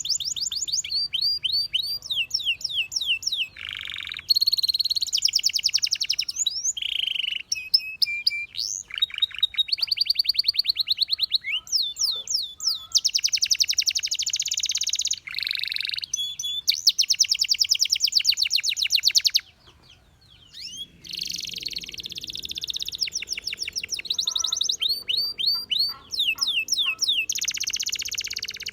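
Domestic canary singing: fast trills of rapidly repeated notes, each run held for a second or two before switching to another, with a short pause about two-thirds of the way through.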